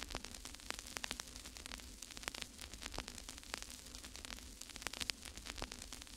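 Faint crackling static: irregular clicks and pops over a low steady hum.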